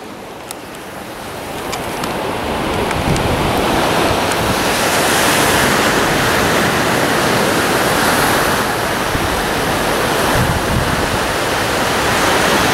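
Ocean surf washing onto a sandy beach, with wind on the microphone: a steady rushing noise that swells over the first couple of seconds and then holds.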